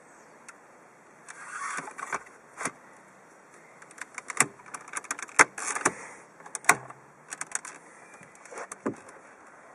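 Hand handling a car's plastic dashboard and centre air vent: a run of irregular clicks, taps and small rattles of plastic, busiest in the middle.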